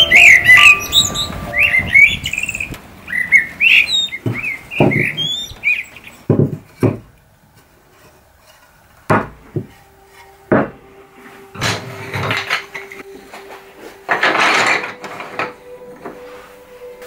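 A songbird singing in quick, whistled, rising-and-falling phrases for about the first six seconds. Then pieces of scrap wood knock sharply as they are set down on a wooden workbench, one at a time, followed near the end by two longer rattles of thin wooden sticks being shuffled against each other.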